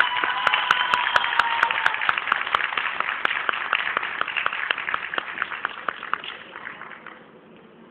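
Audience applause that dies away over about seven seconds, with sharp regular claps standing out in the first three seconds. A held high tone sounds over the first two seconds.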